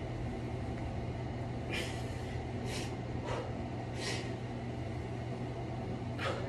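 A man breathing out in several short, sharp hissing breaths while doing dumbbell sumo goblet squats, over a steady low hum.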